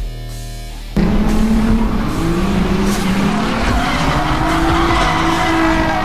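BMW E36 drift car driven hard through a drift: from about a second in, the engine runs at high revs, its pitch rising and falling, over loud tyre squeal and skidding.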